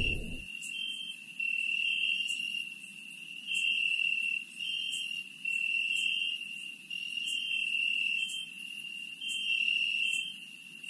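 Crickets chirping: a steady high trill that pulses in and out unevenly, its pitch shifting a little between pulses, over a faint low hum.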